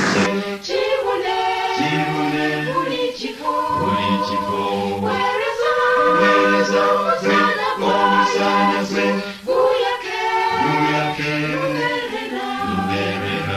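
Choir singing in several voice parts, holding sustained chords that change every second or two.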